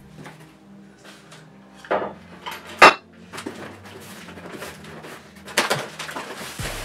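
Metal Phoenix scooter T-bars clanking as they are set down on a wooden table, with a knock about two seconds in and a sharper, louder clank a moment later. Near the end comes a burst of cardboard rustling and scraping as the box flaps are pulled and the box is rummaged.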